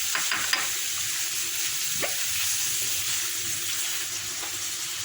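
Chicken livers and gizzards sizzling steadily as they fry in oil and beef fat in a pan, with a few short scrapes near the start and about two seconds in.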